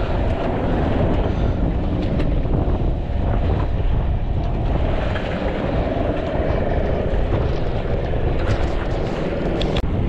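Steady wind rumble on the microphone, mixed with the sea washing below, with a few faint ticks near the end.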